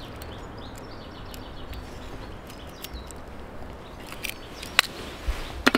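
Small clear plastic tackle container being handled and opened with the fingers: scattered faint ticks and rustles, a sharp click about five seconds in and a louder double click near the end, over a steady outdoor background hiss.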